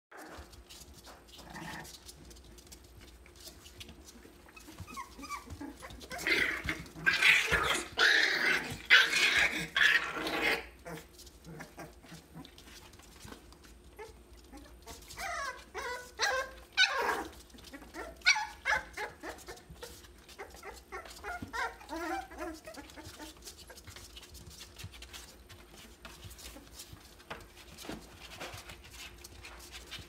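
A litter of three-week-old American bully puppies yelping and whining as they play. The calls are high-pitched and come in a loud flurry about six to ten seconds in, with scattered shorter yelps later.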